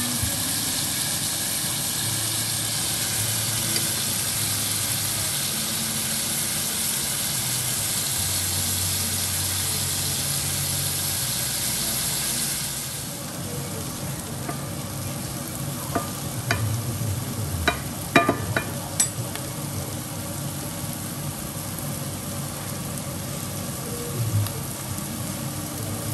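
Strips of beef sizzling in a frying pan. After a cut about halfway in, sliced mushrooms, red peppers and onions sizzle more softly while a wooden spatula stirs them, with a few sharp clacks of the spatula against the pan.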